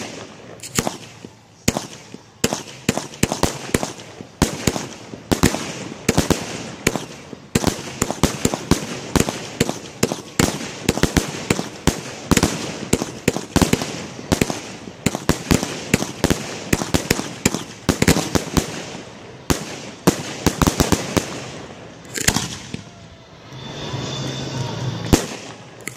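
Aerial fireworks display: a rapid barrage of shell bursts, about three sharp bangs a second, thinning out near the end.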